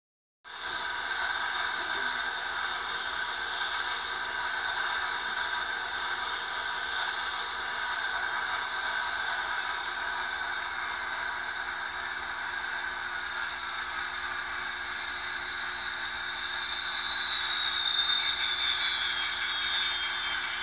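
DCC sound decoder in an N-scale ScaleTrains Union Pacific GTEL model playing the gas-turbine shutdown sequence. A loud, hissing high-pitched turbine whine holds steady, then from about ten seconds in winds down, its pitch falling and the sound slowly fading as the turbine spools down.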